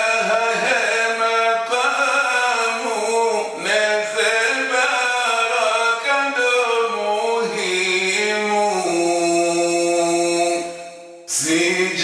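A man's solo voice chanting an elegiac poem in Comorian, sustaining long notes through the phrase. Near the end the voice fades and breaks off briefly before the next line starts sharply.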